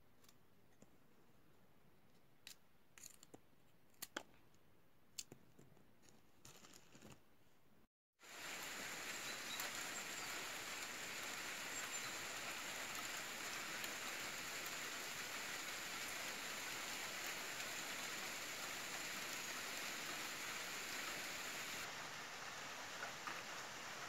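A few light clicks and taps over a quiet room, then, after a sudden cut, steady rain falling: an even, loud hiss.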